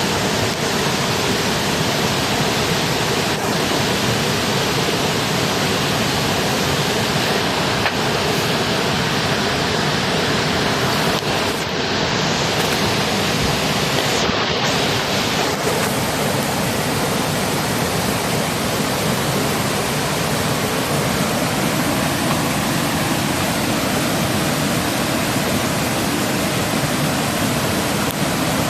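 Steady rushing noise of flowing water, like a mountain stream running.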